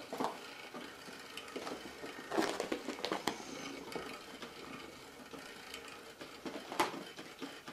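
Soft thumps and scuffs of a cat pouncing and running on carpet, with a few sharper taps about three seconds in and near the end.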